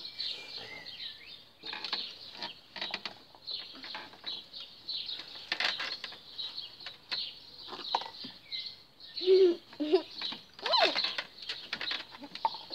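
Scattered rustling and crackling noise. About nine to eleven seconds in come a few short, muffled, voice-like vocal sounds, which are the loudest part.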